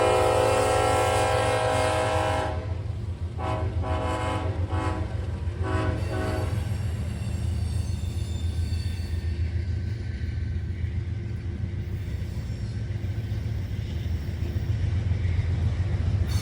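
Diesel locomotive air horn sounding a long blast, then a string of short blasts that stop about six and a half seconds in. After that comes the steady low rumble of the locomotive and train.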